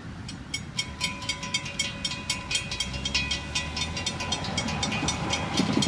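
Railroad grade-crossing bell ringing with fast, even strikes while the crossing lights flash and the gates rise after the train has passed. A low rumble underneath grows louder about halfway through.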